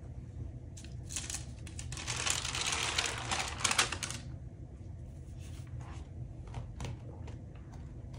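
Paper sheets being handled and unfolded on a wooden tabletop, crackling and rustling loudest for a few seconds about a second in, then scattered light taps and clicks as pieces are lifted and set down.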